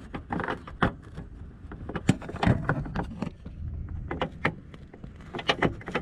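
Plastic clicking, knocking and scraping of a turn signal bulb socket being wiggled and twisted into the back of a Mazda CX-5 headlight housing, with many short irregular clicks close to the microphone.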